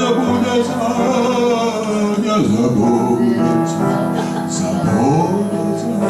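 A man singing a song with long held notes, over instrumental accompaniment.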